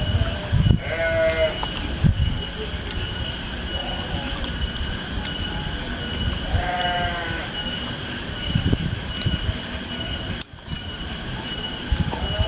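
Two drawn-out, wavering calls about six seconds apart, over a steady high drone. This is the strange outdoor sound that is jokingly called a dinosaur's.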